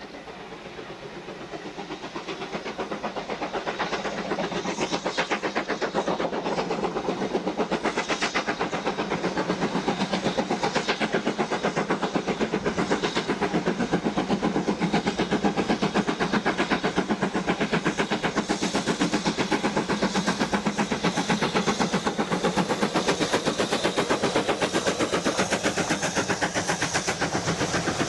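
BR Standard 9F No. 92134, a two-cylinder 2-10-0 steam locomotive, working under steam with a rapid, even exhaust beat that grows louder over the first few seconds as it approaches. Near the end the rumble of its coaches on the rails joins in.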